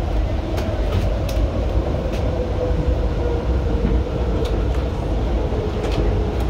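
Steady low rumble of a passenger train running at speed, heard from on board as it passes close alongside a freight train of covered grain hoppers. Scattered sharp clicks of wheels over the rails run through it.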